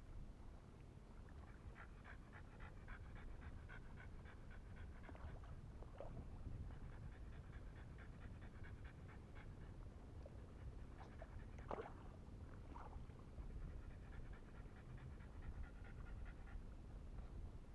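French bulldog panting quickly and rhythmically in three bouts, with a brief sharp squeak about twelve seconds in.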